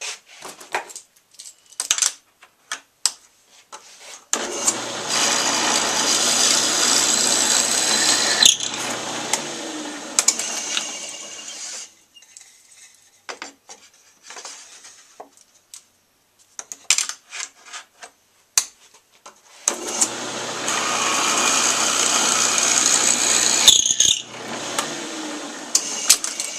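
Drill press running twice, each time for several seconds, its motor humming steadily while the bit bores into a piece of wood clamped on edge. Between the two runs there are clicks and knocks of the wood and clamps being handled.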